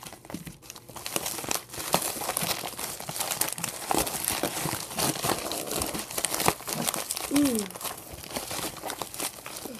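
Plastic packaging crinkling as it is handled and unwrapped, with many small irregular crackles.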